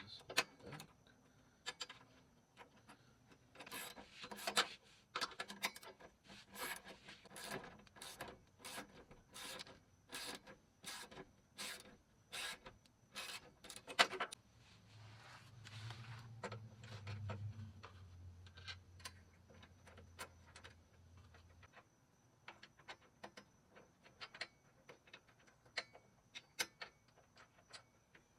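Hand ratchet wrench clicking in quick repeated strokes, about two a second, as bolts are run in on a rear sway bar mount; the strokes thin out about halfway, while a low hum runs for several seconds.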